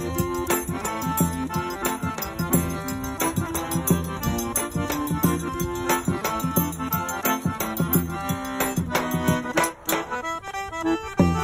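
Background music: held notes over a steady, rhythmic percussion beat.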